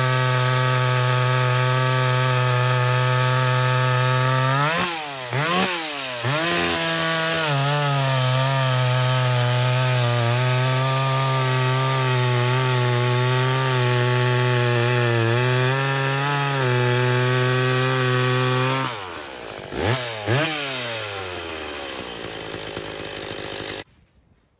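Ported McCulloch Pro Mac 850 two-stroke chainsaw running at full throttle, cutting through a large log. About five seconds in its pitch dips and surges briefly, then holds steady under load until it is let down to idle near the end, blipped twice, and cuts off suddenly.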